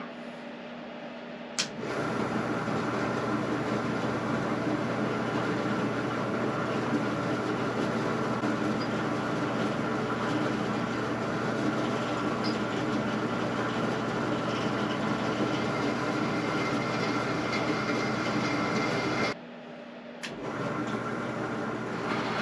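Benchtop drill press switched on with a click, its motor running steadily while drilling pilot holes in steel. It shuts off near the end, then starts again with another click.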